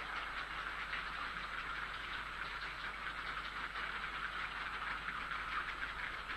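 Grey heron chicks begging at the nest: a continuous chorus of rapid clattering, ticking calls.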